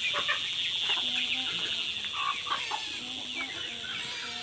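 Backyard chickens clucking, many short calls overlapping, as they crowd around to peck at scattered feed.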